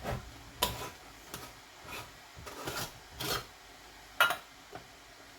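Metal canning lid and screw band scraping on a glass jar as the lid is worked off and refitted: a series of short rasping scrapes, with a sharper click about four seconds in.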